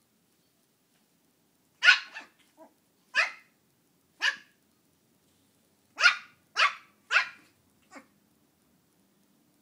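Shih tzu puppy barking at a mini pumpkin it is upset with: about seven short, sharp barks, spaced out at first, then three in quick succession, the last one faint.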